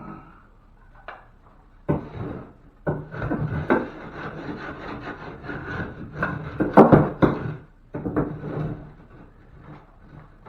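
Wood rubbing and scraping, with sharp knocks, as wood backing is worked into the ceiling opening. It starts about two seconds in, is loudest about seven seconds in, and dies away near the end.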